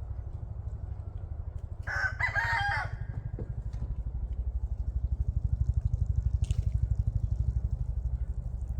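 A rooster crows once, about two seconds in, a crow of about a second, over a steady low rumble with a fast, even pulsing.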